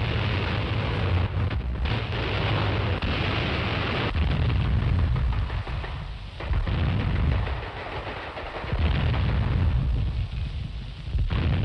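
Battle sound of gunfire and explosions on a 1940s newsreel soundtrack. It is a dense, heavy rumble that surges in waves every couple of seconds, with sharp cracks at the start of each wave.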